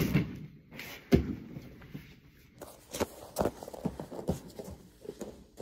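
Bodies and bare feet on grappling mats: a loud thud about a second in, then scattered softer thumps and shuffling as a barefoot person walks across the mat.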